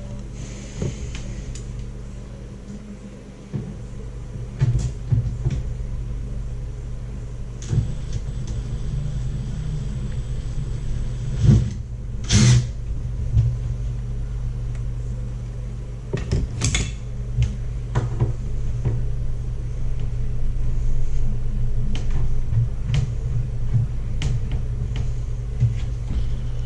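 Scattered knocks and clicks of a cabinet door and its hinge being handled and fitted, with two louder scraping knocks about halfway through, over a steady low hum.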